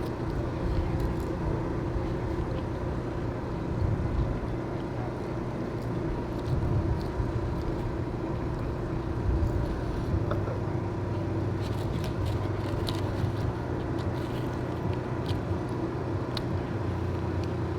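Steady low engine hum, as of a vehicle or generator idling, with a few faint clicks and rustles about two-thirds of the way through.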